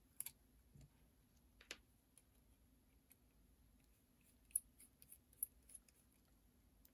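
Faint, scattered clicks of a small screwdriver working the two gear-tower screws out of an HO-scale model locomotive's metal chassis: a couple of clicks just after the start, one near two seconds, and a quick run of clicks from about four and a half to six seconds in.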